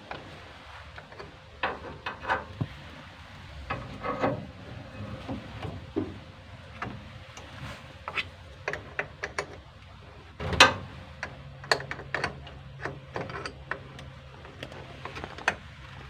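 Metal hand tools clicking, tapping and scraping on a jeepney's battery terminals and cable clamps as they are loosened, an irregular run of sharp clicks with the loudest knock about ten and a half seconds in.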